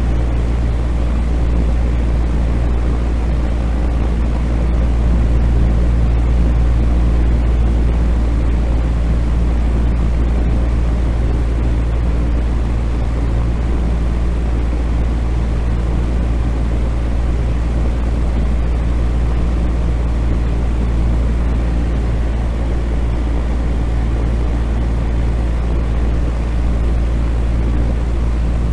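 Electric fan running steadily: a constant low hum under an even rush of air, unchanging throughout.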